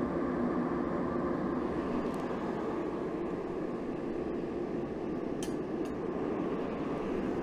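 Gas forge running with a steady roar and hum. Two faint clicks come a little past the middle.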